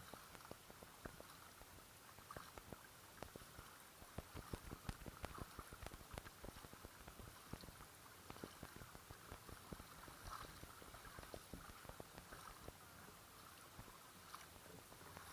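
Faint, irregular small splashes and drips of water lapping against the hull of an Oru folding kayak as it is paddled, heard as soft ticking over a low hiss.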